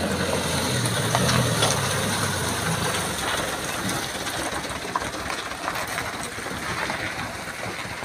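Light-duty dump truck's diesel engine running as the truck rolls slowly past, loaded with soil, with tyre crunch on the dirt.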